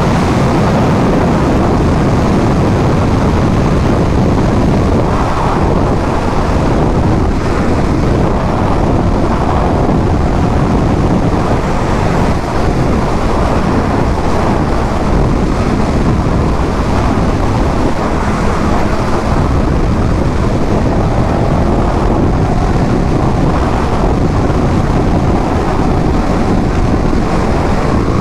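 A motorcycle riding at speed: steady engine noise mixed with wind rushing over the microphone, unbroken throughout.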